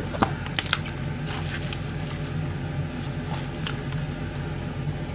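Shredded cabbage in a plastic container being handled: scattered light clicks, scrapes and crunches, over a steady low hum.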